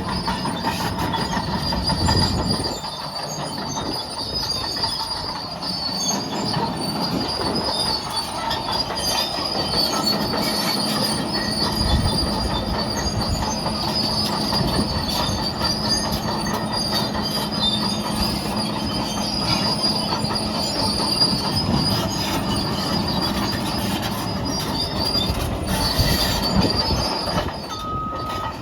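Caterpillar D6N crawler bulldozer working, its diesel engine running under the clatter of the steel tracks, with a steady high-pitched squeal from the undercarriage.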